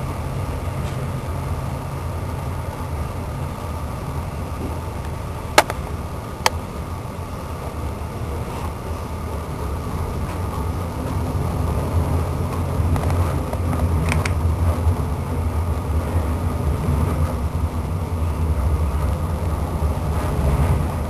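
Steady low rumble of a moving train heard from inside the carriage, growing a little louder about halfway through. Two sharp clicks come about five and a half and six and a half seconds in.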